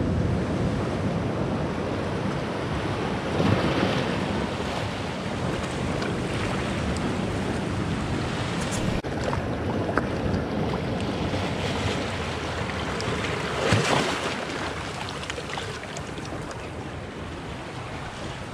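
Sea surf washing in among shoreline rocks, a steady wash of water with louder swells about three and a half and fourteen seconds in.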